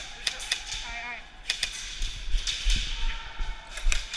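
Airsoft guns firing: sharp snapping shots at irregular intervals, some in quick pairs, over a steady background hiss. A short distant shout about a second in.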